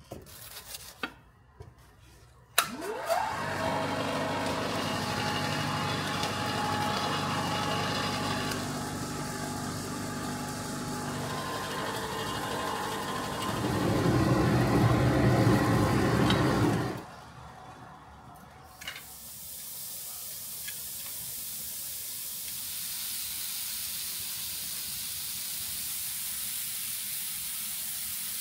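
A motor starts up with a quick rising whine, runs steadily for about fourteen seconds, grows louder for its last few seconds and then cuts off. A few seconds later a steady high hiss sets in.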